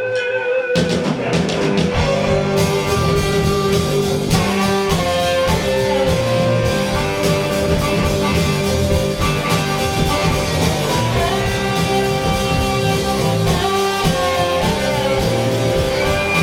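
Live rock band playing, led by guitar. A sparse opening gives way to the full band with drums about a second in.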